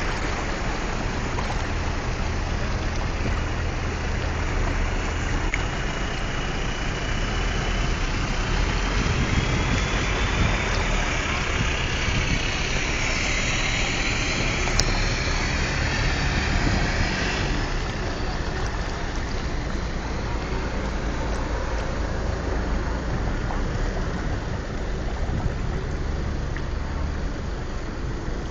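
A motor vehicle's engine running steadily, with a louder swell about a third of the way in that dies away a little past the middle.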